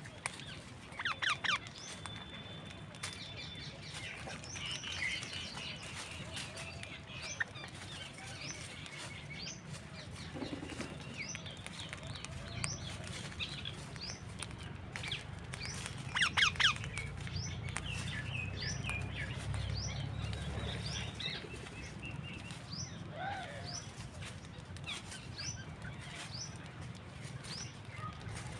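Parrots and small birds chirping and calling continuously with many short rising chirps, broken twice by loud bursts of harsh calls, about a second in and again around halfway. A low rumble runs underneath.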